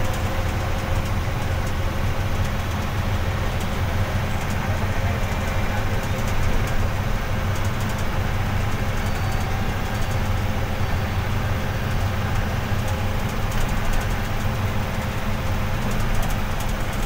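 Cabin noise of an Ashok Leyland 12M low-floor bus on the move: a steady engine drone and road rumble, with scattered faint clicks.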